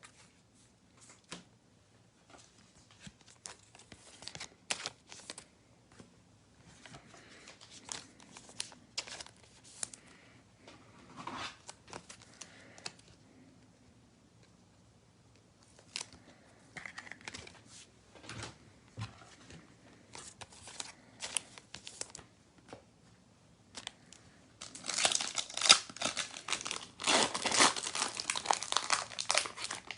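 Trading cards being handled, with scattered soft clicks and crinkles, then a louder stretch of crinkling and tearing near the end as a card pack's wrapper is torn open.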